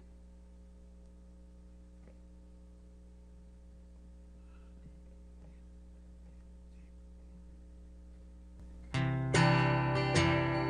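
A low steady electrical hum with a few faint ticks for about nine seconds, then a guitar starts strumming chords, the opening of the next song.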